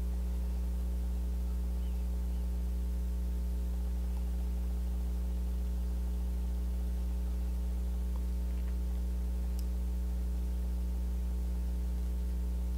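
Steady electrical mains hum: a low buzz with several unchanging tones stacked above it.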